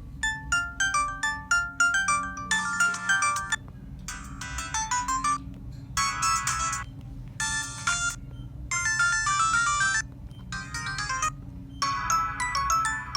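LG KU4000 mobile phone playing a run of short polyphonic ringtone melodies, about eight of them, each cut off after a second or so with a brief gap before the next.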